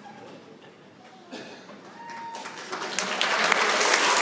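Audience applause starting a little past halfway and swelling, many hands clapping, with a brief whistle just before it.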